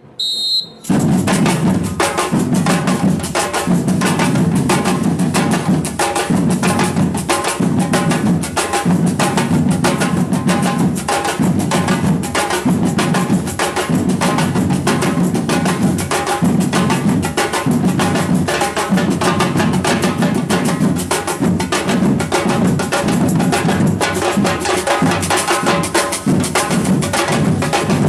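Samba percussion band playing a dense batucada rhythm on bass drums, snares and other percussion, the whole band coming in together about a second in, right after a short high whistle blast.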